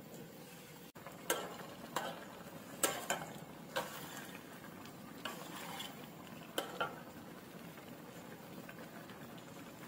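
A metal ladle stirring a wok of simmering green curry, clinking and scraping against the aluminium wok about nine times between one and seven seconds in, over a steady bubbling hiss.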